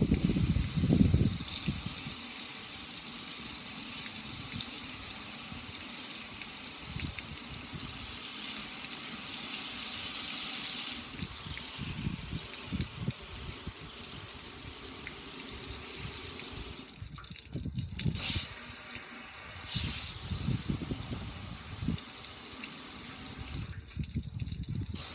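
Streams of water pouring onto a gas grill's metal lid and control panel and splashing onto concrete, a steady gushing splash, with occasional low rumbles.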